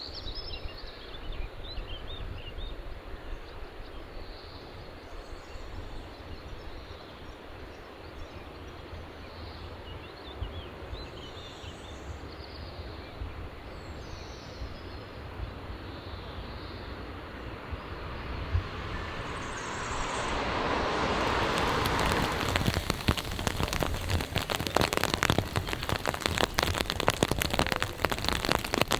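Steady rain outdoors, heard as a soft even hiss at first. From about two-thirds of the way in, closer and louder rain patters, dense drops ticking on a hard surface nearby.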